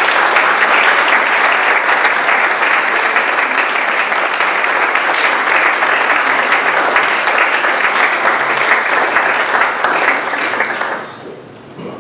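Audience applauding steadily, dying away about eleven seconds in.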